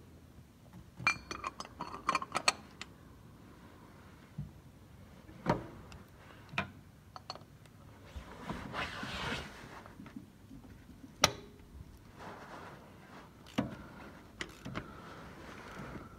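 Metal hand tools clinking and knocking as an oil filter cap wrench and a ratchet with extension are handled and fitted to the oil filter housing. A quick run of clinks about a second in, then scattered single knocks and a brief shuffling noise around the middle.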